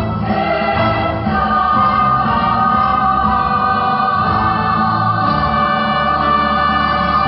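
Choir singing a march with instrumental backing, holding one long chord from about a second in.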